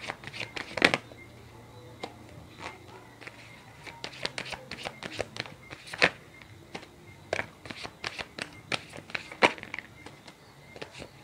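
A tarot deck being shuffled by hand: irregular light snaps and slaps of card against card, a few louder than the rest.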